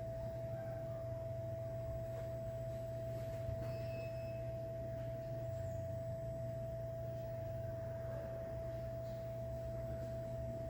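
Hot-air rework station running: a steady low hum from the blower with a steady whine at one pitch above it.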